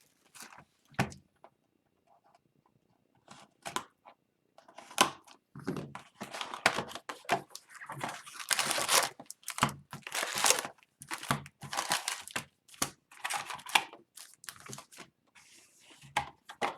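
Plastic shrink-wrap being torn and crinkled as a sealed hockey card hobby box is opened: scattered rustles at first, then a dense stretch of tearing and crinkling from about five seconds in.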